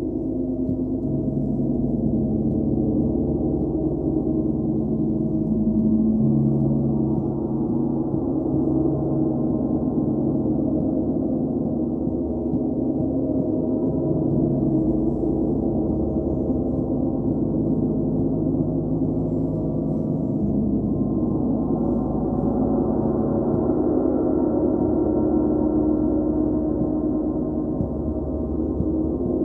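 Large hanging gongs played continuously with soft ball-headed mallets. They give a steady, sustained wash of low overlapping tones with a deep rumble beneath, the mix of tones shifting slowly as it goes.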